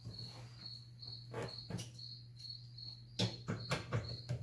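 A cricket chirping steadily, a short high chirp about twice a second, over a steady low hum. A few sharp clicks and knocks cut in about a second and a half in and again around three seconds in.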